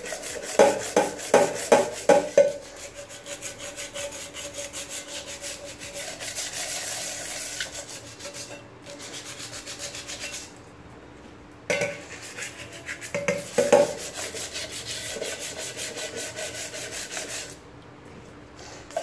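Sandpaper wet with diluted dishwashing liquid rubbed rapidly back and forth on the base of a steel milk pan, scouring off burnt-on black stains. There are a few sharp knocks in the first couple of seconds. The scrubbing stops for a couple of seconds about halfway through and again near the end.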